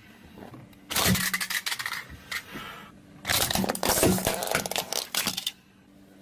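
Car tyre rolling over a squishy rubber frog toy on asphalt and crushing it: a short burst of crackling and popping about a second in, then a longer, denser one from about three seconds in as the toy is squashed flat and its filling is pressed out.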